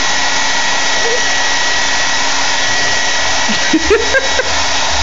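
Handheld hair dryer running steadily: an even rush of blown air with a constant motor whine.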